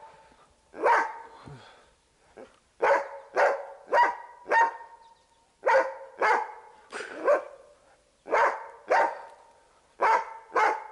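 Hunting dog barking over and over, in runs of two or three barks with short pauses between, baying at a sable it has treed.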